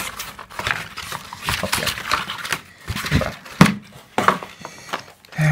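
Cardboard box packaging and a paper insert being handled: rustling and scraping with a few sharp knocks, the loudest about two thirds of the way through.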